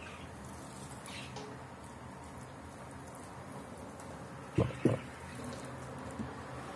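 A wooden spoon knocks twice in quick succession, about halfway through, over a faint steady hum.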